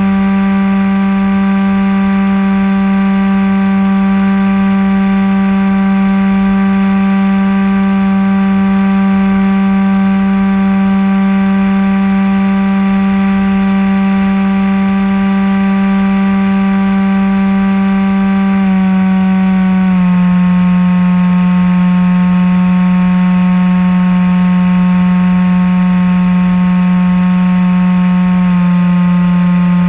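Maxi-Swift RC flying wing's motor and propeller heard from onboard, a steady high hum that steps down in pitch twice about two-thirds of the way through as the throttle is eased back, with a slight change again near the end.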